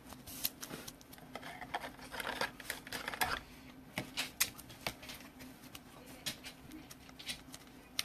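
Faint handling of trading cards and their packaging: scattered light clicks, taps and short rustles, over a low steady hum.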